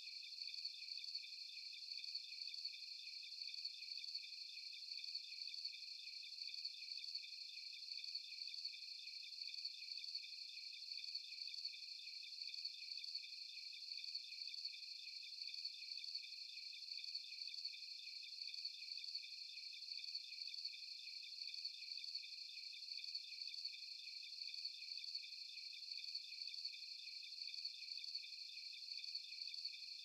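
Crickets chirping in a steady night chorus: high, rapidly pulsing trills that never let up.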